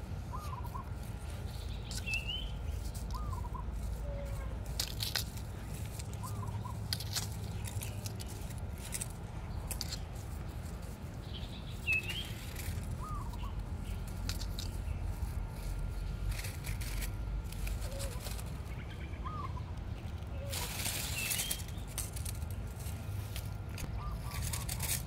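Birds calling outdoors: short chirping calls repeating every second or two over a low steady background rumble, with a few higher calls and a brief burst of hiss about three-quarters of the way through.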